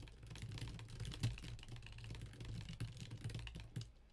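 Typing on a computer keyboard: a quick, uneven run of key clicks as a sentence is typed.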